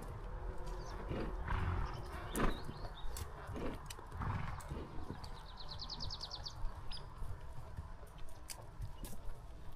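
Horse walking a trail: hoof falls and small knocks and clicks over a low rumble, with a few short breathy sounds from the horse. Around the middle comes a brief, high, rapid trill of about a dozen even pulses.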